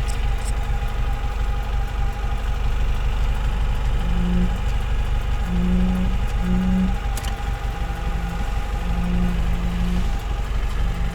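VAZ 2107's carburetted four-cylinder engine running after a year laid up, with a knock in it. Short level tones come and go over it from about four seconds in.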